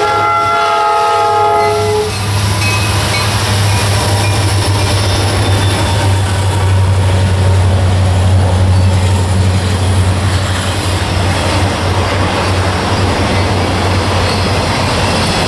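Diesel freight locomotives passing close by, their multi-note horn chord cutting off about two seconds in, then a deep, steady engine drone as the units go by. This is followed by the rumble and clatter of intermodal flatcars loaded with trailers and containers rolling over the rails.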